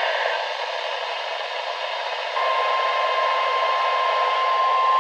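NOAA Weather Radio broadcast heard through a receiver's speaker under a steady hiss of reception static. A short higher tone ends just after the start. About halfway in, the long steady 1050 Hz warning alarm tone begins, the attention signal that comes before a warning message.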